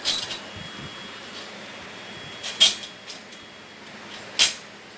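Stainless-steel chair tubes clinking against each other as the frame is fitted together: three sharp metallic clinks, the middle one loudest, with a brief high ring after them.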